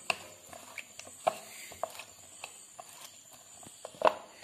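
Masala-coated cauliflower florets being tossed and turned by hand in a dish: irregular light knocks and taps as the florets and fingers hit the dish, the loudest about four seconds in.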